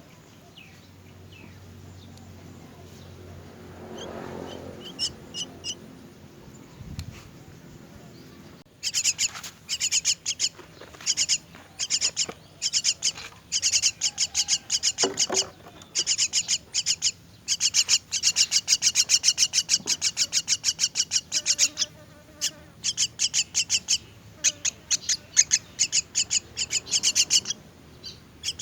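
Myna chicks begging: rapid, high, repeated chirps, several a second, in bursts with short pauses. They start suddenly about a third of the way in, after a few faint chirps.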